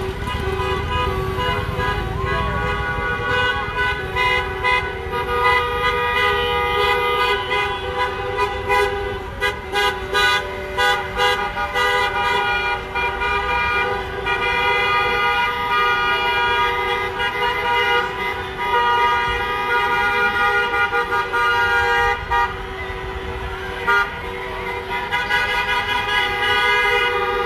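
Many car horns honking at once, several held long and overlapping at different pitches. About nine seconds in comes a run of quick short toots.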